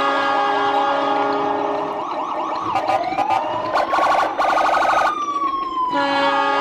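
Several sirens wailing at once, their pitches sliding up and down over a steady held tone; a fast warbling siren joins for about a second and a half midway.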